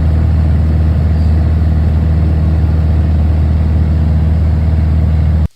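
Engine running steadily with a strong low hum, loud, cut off abruptly near the end.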